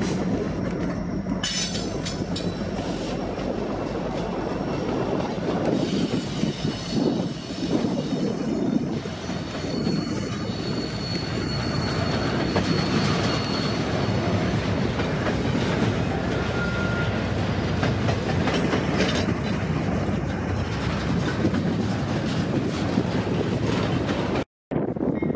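Freight train rolling past, its wheels clattering steadily over the rails, with faint high wheel squeal now and then. The sound drops out for a moment near the end.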